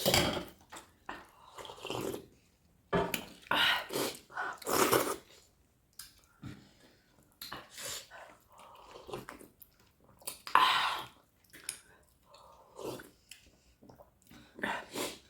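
A person eating a meal: irregular chewing and mouth sounds with small clicks and taps, in uneven bursts with short pauses.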